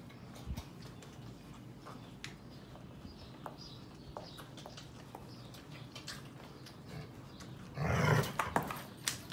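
Sheepadoodle puppies nursing and scuffling with their mother, with faint scattered clicks and smacks. About eight seconds in comes one short, loud dog vocalization.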